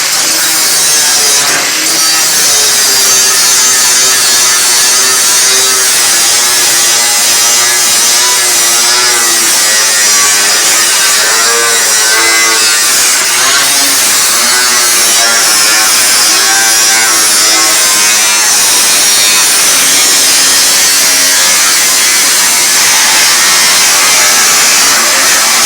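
Power tool cutting steadily through a stainless steel sink, its whine wavering in pitch as it bites into the metal.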